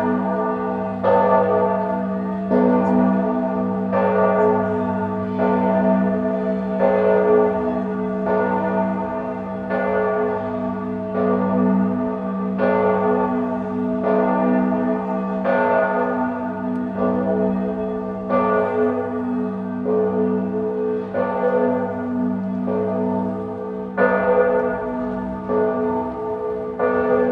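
Church bells ringing, a new strike about every second and a half, each strike's low hum lingering under the next.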